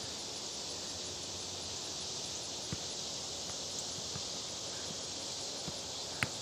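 Steady high-pitched chorus of insects in summer trees over soft outdoor background noise, with a few faint knocks. Near the end, a single sharp thump: a soccer ball being kicked.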